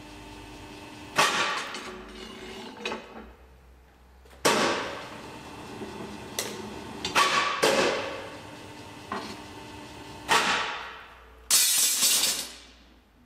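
Deformed steel rebar clanking against the steel table and bending pins of a rebar bending machine while a 14 mm bar is bent into a stirrup. There are about nine sharp metallic knocks, each ringing out, and a louder, longer clatter near the end.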